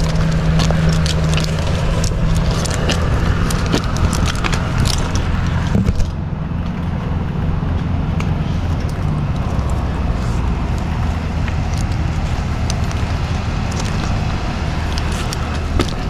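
A heavy truck engine idling steadily with a low, even hum. Scattered sharp clicks and crackles sit over it for the first six seconds.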